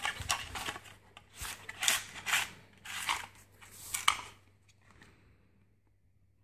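Plastic zip bags crinkling and plastic holster parts clicking as they are handled on a table, in a run of crackly bursts that dies away about five seconds in.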